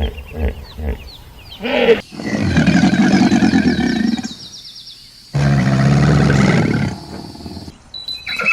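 A large animal calling: a few short calls, then two long, loud calls of about two seconds each.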